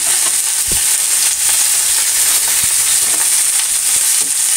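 Salmon pieces frying in hot olive oil in a cast iron skillet: a steady, high-pitched sizzle, with a faint low knock about two-thirds of a second in.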